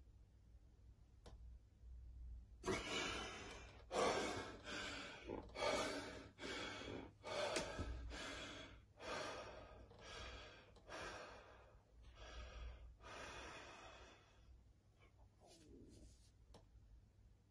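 A bodybuilder breathing heavily while flexing through poses: a run of short, forceful breaths about every half second to a second, beginning a few seconds in and fading near the end.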